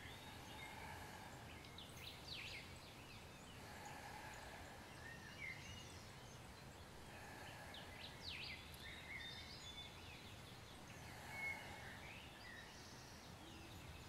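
Faint outdoor ambience with scattered bird calls: quick high chirps in two small clusters, about two seconds in and again about eight seconds in, with a few short whistled notes near the end.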